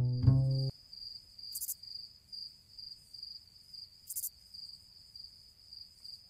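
Plucked bass music cuts off under a second in. Then crickets chirp faintly in a steady pulsing rhythm, with a short high rasp about every two and a half seconds.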